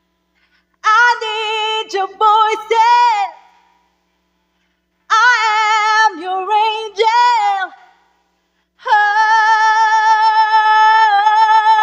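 A woman singing solo without accompaniment: two short wordless runs with vibrato, then a long high note held from about nine seconds in.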